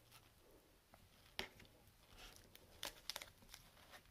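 Faint crinkling and clicking of clear plastic card sleeves being handled: one sharp tick about a second and a half in, then a short cluster of them around three seconds, otherwise near silence.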